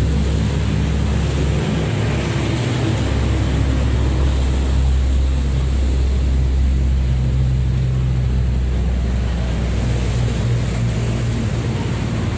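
An engine running steadily, a continuous low rumble with a deep hum.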